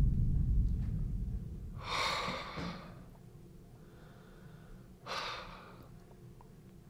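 A man breathing hard: two loud breaths about three seconds apart, after a low rumble fades out at the start.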